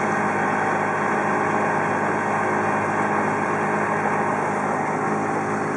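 Evinrude 7.5 hp outboard motor running at a steady cruising throttle, pushing a flat-bottomed plywood boat at about hull speed, with a constant rush of noise alongside the engine note.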